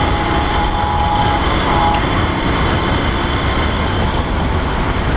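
Steady rush of wind and road noise from a Lifan KPR 165 motorcycle riding at highway speed, its engine running under the wind on the microphone. A faint steady tone sounds for the first two seconds.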